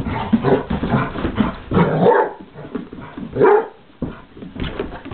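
Basset hound barking in rough play, with scuffling and bumps of bodies on the floor; the two loudest barks come about two and three and a half seconds in.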